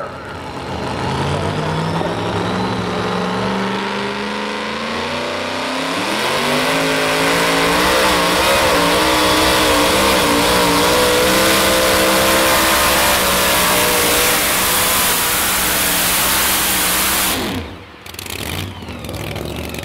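Modified two-wheel-drive pulling truck's engine under load on a sled pull. It revs up about six seconds in and holds at high revs for about ten seconds, then drops off sharply near the end as the run ends.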